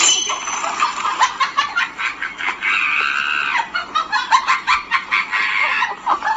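A dense, continuous run of rapid clucking, fowl-like calls.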